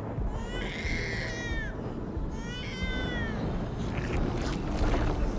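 Newborn baby crying: two wailing cries about a second each, the pitch falling away at the end of each, over a low rumble.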